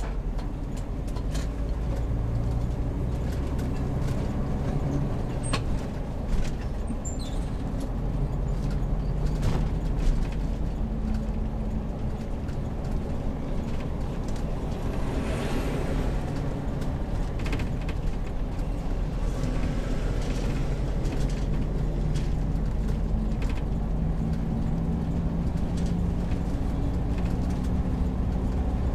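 Heavy motorhome driving on the road: a steady engine and road hum whose pitch drifts up and down with speed. A few short rattles or knocks cut through it, and there is a brief hiss about halfway through.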